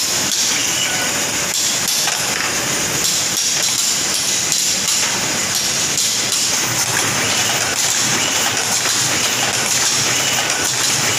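Groz-Beckert automatic drawing-in machine running, threading warp yarn through the heald wires: a fast, irregular mechanical clicking and clatter over a steady high hiss.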